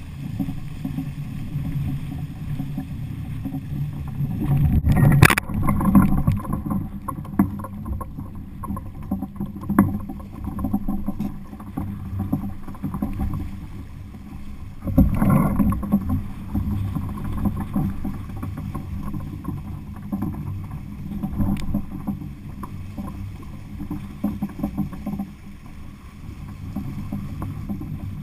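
Water rushing along the hull of a Laser II sailing dinghy under way: a low, steady rushing noise, with two louder knocks about five and fifteen seconds in.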